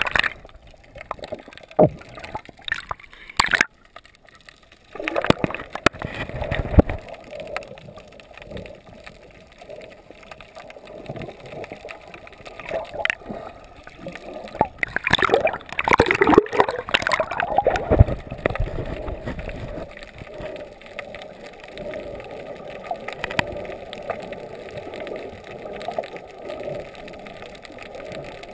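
Water heard through an underwater camera housing while snorkelling: muffled gurgling and sloshing, with sharp knocks and splashes in the first few seconds and a louder churning stretch about halfway through.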